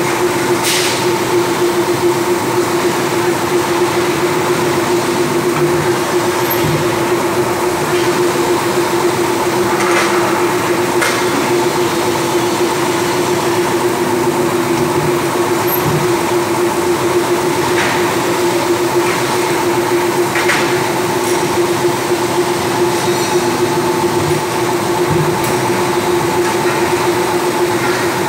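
Section forming mill with a hydraulic flying shear running: a loud, steady machine hum with a strong held tone, broken by a handful of sharp metallic clanks at irregular intervals as the shear carriage cuts and resets.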